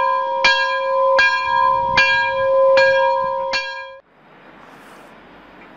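A bell struck over and over, about once every 0.8 seconds, each stroke ringing on into the next. It cuts off abruptly about four seconds in, leaving a fainter steady hiss of background noise.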